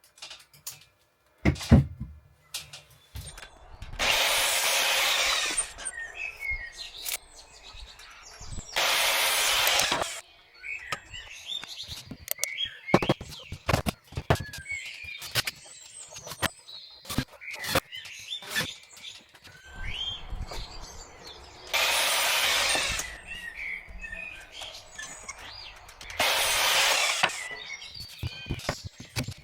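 Hand work on wooden ceiling panels: scattered clicks and knocks, broken by four bursts of hissing noise about a second or two long. Small birds chirp between them.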